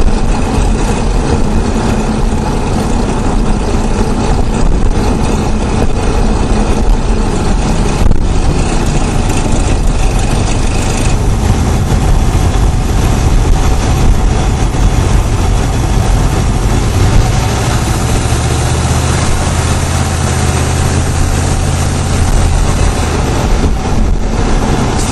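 GM LS4 5.3-litre V8 running, heard close up from under the hood, with a chatter that the owner believes is abnormal and getting worse and ties to the Displacement on Demand system, though others call it normal. A deeper low hum grows stronger about two-thirds of the way through.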